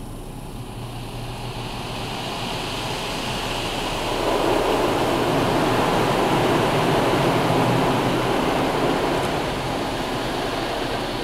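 Automatic car-wash gantry spraying water over a car, heard from inside the cabin as a steady rushing spray on the body and windshield. It swells a few seconds in as the spray passes over the front and eases off near the end. This is the pass that should apply Rain-X.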